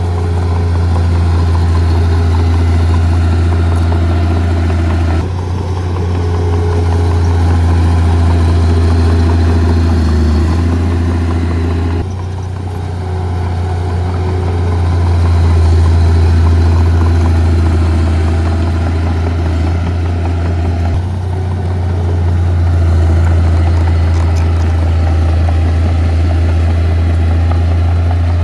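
Heavy-equipment diesel engine running steadily with a deep hum, its load rising and falling; the sound shifts abruptly a few times.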